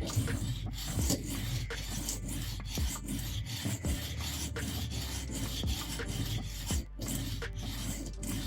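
Leatherman Rebar multitool blade being drawn back and forth across the coarse side of a dual-sided whetstone in repeated scraping strokes. This is the stage of raising a burr along the edge before moving on to the 1000 grit.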